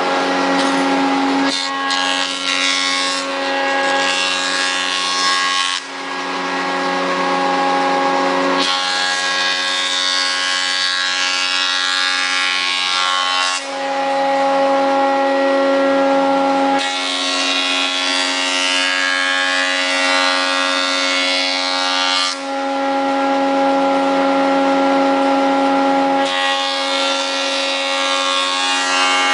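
Combination woodworking machine's planer cutterhead running with a steady whine, as a board is fed across it four times. Each pass adds a loud, rough cutting sound of about four to five seconds.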